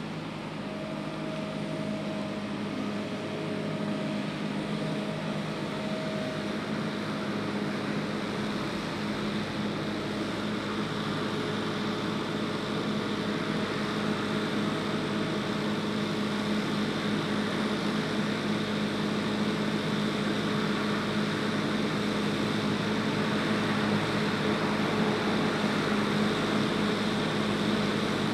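Engine of a Bergmann Roll-Packer RPM 7700 mobile waste compactor running steadily with a low hum, growing gradually louder as the machine drives up alongside a container.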